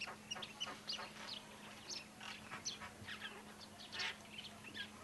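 Birds chirping: many short, high calls at irregular intervals, over a faint steady low hum.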